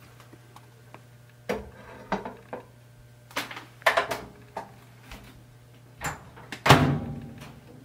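Clear plastic microwave cover and plate clattering in light knocks as they are set inside a microwave oven, then the microwave door pushed shut with a louder thud near the end.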